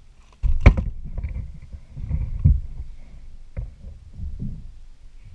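Handling noise in a small paddled boat: low rumbling and bumping against the hull with several knocks, the sharpest one just under a second in.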